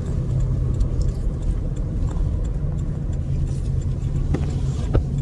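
Steady low hum of a car heard from inside the cabin, with a couple of light clicks near the end.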